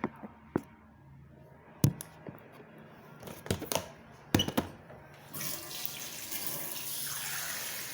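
Several sharp knocks and clatters of kitchenware, then about five seconds in a kitchen tap is turned on and water runs steadily into the sink.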